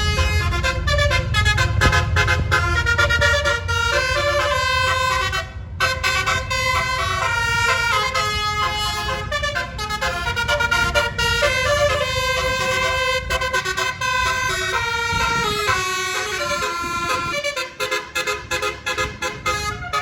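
Tour bus's nine-note Basuri "telolet" horn playing a tune of quick, stepping notes with short breaks between phrases. The bus engine rumbles underneath, fading in the last few seconds.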